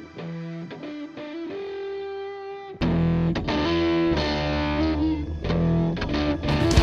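Guitar-led rock music. A quieter melodic line plays first, then about three seconds in a much louder full band with distorted electric guitar comes in.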